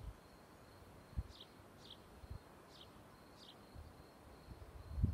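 A small bird calling faintly outdoors, short downward-sliding chirps in pairs about every second and a half, over a faint steady high tone and a few soft low thumps. A low rumble swells near the end.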